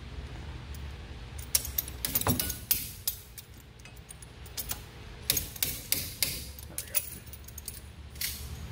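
Scattered sharp metal clicks and clinks of locking pliers working a new cotter pin into the rear axle nut, over a low steady hum.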